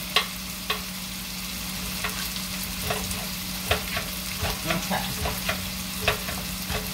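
Squash frying in oil in a pan, sizzling steadily, over a steady low hum. Sharp irregular knocks, roughly one a second, come through as a knife cuts squash into smaller pieces on a cutting board.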